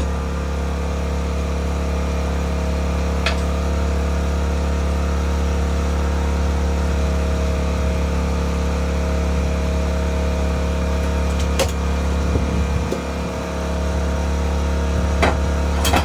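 A steady low mechanical hum, like a running engine, with a few fixed tones in it, broken by short clicks about three seconds in, around twelve seconds in and twice near the end.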